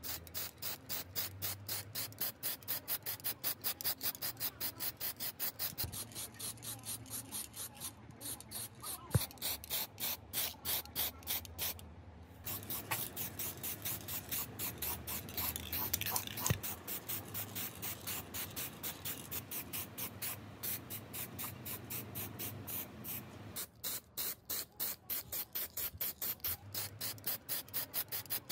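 Aerosol spray paint can spraying in rapid short hisses, about four a second, with a few brief breaks. There are also a couple of sharp clicks, the louder about nine seconds in.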